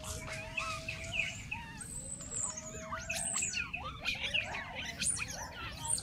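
Several birds chirping and whistling at once in a busy forest chorus: quick rising and falling chirps over a long, slowly rising whistle.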